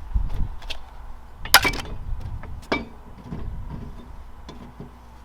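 Knocks and clanks of work on the car's front suspension during adjustments. A low rumble comes early, then a sharp knock about a second and a half in and another near three seconds.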